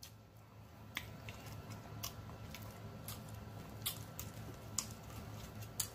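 A man chewing and smacking food while eating from his plate with his fingers: soft wet chewing with a handful of sharp mouth clicks spread through, over a low steady hum.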